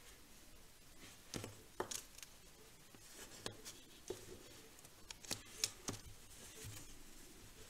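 Blending brush dabbing and scrubbing gold ink onto card stock through a stencil: a few faint, irregular taps and scuffs.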